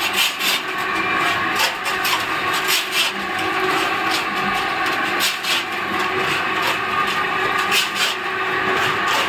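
Electric lime-mortar pan mixer running, its blades churning and scraping through the mix in the pan with a continuous gritty rasping and a low motor hum beneath.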